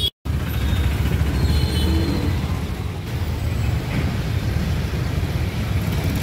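Steady low rumble of street traffic, with the sound cutting out for an instant just after the start.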